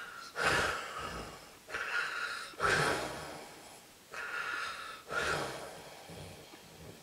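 Loud snoring: about five rough, noisy breaths about a second apart, each starting sharply and then fading out.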